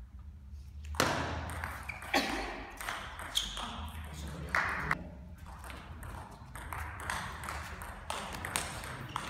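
Table tennis ball clicking sharply as the two players hit it back and forth in a rally, each stroke and table bounce a separate click.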